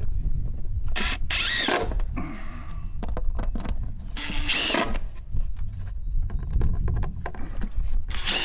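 DeWalt cordless driver driving screws into a wooden block in three short bursts, its motor whine rising and falling with each, over a steady low rumble.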